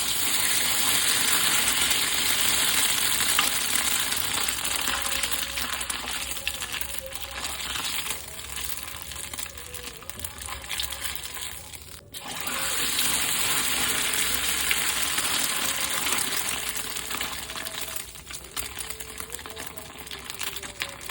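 Chicken sempol skewers sizzling as they fry in hot oil, a steady crackling hiss. It cuts off abruptly about twelve seconds in and starts again straight after.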